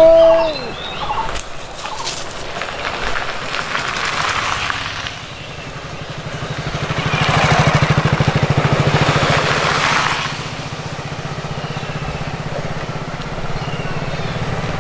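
A cat gives one loud rising-and-falling yowl, the threat call of a cat in a face-off with another cat. After that an engine runs steadily in the background, growing louder to a peak around the middle and then easing off.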